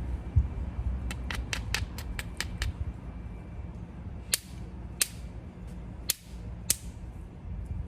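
Obsidian being knapped into a stone tool: a quick run of sharp clicks, about five a second, then four louder single clicks a little apart, over a low handling rumble.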